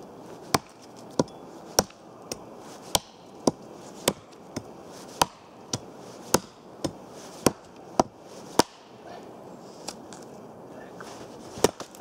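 Hatchet chopping through a dead birch branch: about sixteen sharp strikes at roughly two a second, stopping about two-thirds of the way in, then a single further strike near the end.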